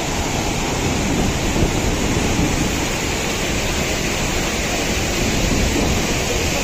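A large waterfall in full monsoon flow and the river rushing below it: a loud, steady wash of water noise.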